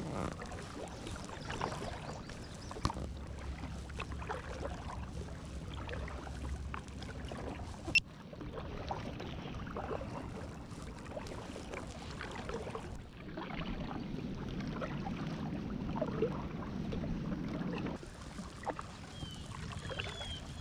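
Double-bladed kayak paddle dipping into and pulling through river water, with small, irregular splashes. A single sharp click about eight seconds in.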